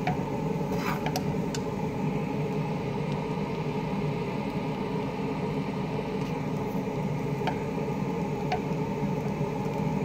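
Fried rice being stirred and turned in a large frying pan with a metal spoon, with a few clinks of the spoon against the pan, over a steady mechanical hum.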